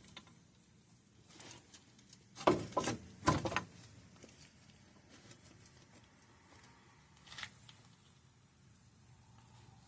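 Metal parts being handled during wheel bearing fitting: a few short knocks and clinks about two and a half to three and a half seconds in, then a faint click near seven and a half seconds, with quiet between.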